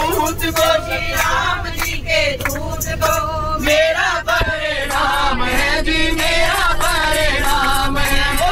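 A man singing into a microphone through the bus's speakers, with a group of passengers singing along. Underneath runs the steady low rumble of the moving bus.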